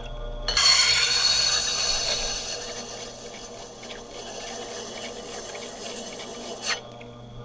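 Steel woodturning tool being ground on the wet stone of a Tormek grinder: a hissing scrape over the low hum of the grinder's motor, starting about half a second in, loudest at first, fading, and stopping short near the end.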